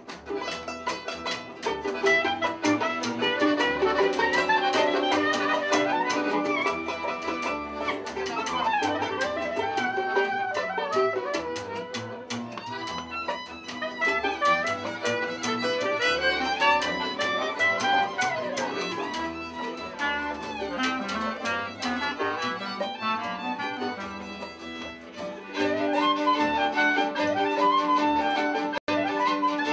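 A live Hungarian Gypsy-style band: a lead violin plays fast runs and slides over accompanying violins, accordion and double bass. It eases off briefly near the end, then swells into a loud held chord.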